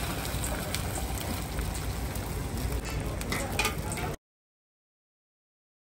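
Beaten egg sizzling on a hot flat steel griddle: a steady frying hiss with a few light clicks, cutting off abruptly into dead silence about four seconds in.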